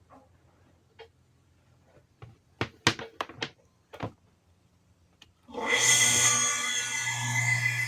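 A few sharp clicks and knocks, then just past two-thirds of the way through the motor of a Kawamoto N3-206SH well pump starts and runs with a steady low hum and a high whine over it. This is the motor's abnormal noise, listed as a fault of this pump.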